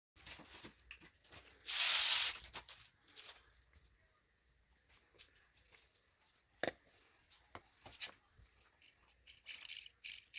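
Hands working the small metal parts of an idle air control valve: a short loud scraping hiss about two seconds in, a single sharp click in the middle, and light rattling of the parts near the end.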